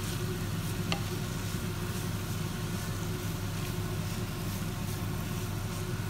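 Grated carrot and onion sizzling in hot oil in a frying pan while a wooden spatula stirs and scrapes through them, over a steady low hum.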